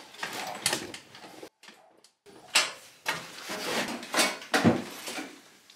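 A string of irregular metal clanks and knocks with short pauses between them, from the seat and steel-tube frame of the home-built tractor being handled and sat on.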